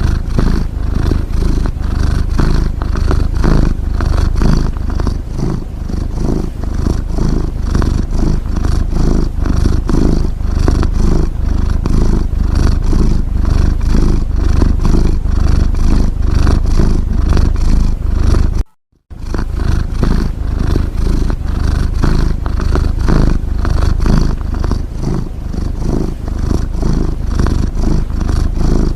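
Cat snoring: a low, fast rattling rumble that goes on steadily, broken by a short gap about two-thirds of the way through.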